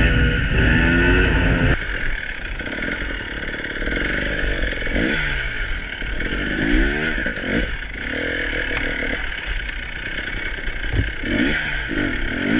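Single-cylinder two-stroke engine of a 2018 KTM EXC 300 TPI enduro bike, revving up and down over and over under riding load, its pitch rising and falling every second or two. The level drops suddenly about two seconds in.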